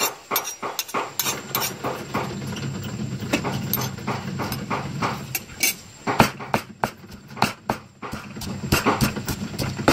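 Metal spoon clicking and scraping against a cleaver and a stone mortar, then a stone pestle pounding curry paste in the stone mortar: dull knocks at an uneven pace, about two to three a second, from about six seconds in.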